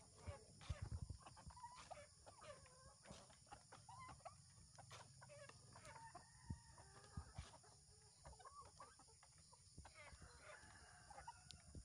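A flock of free-range chickens, mostly Rhode Island Reds, clucking faintly as they crowd in to feed. Many short, overlapping calls run throughout, with scattered light taps.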